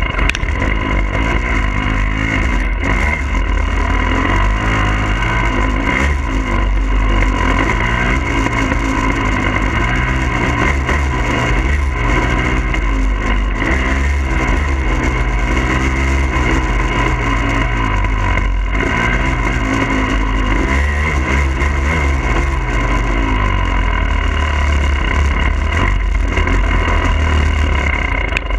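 Husqvarna TE300i's fuel-injected two-stroke engine on a moving dirt bike, its pitch rising and falling continuously with the throttle. Heavy wind rumble on the bike-mounted camera runs under it.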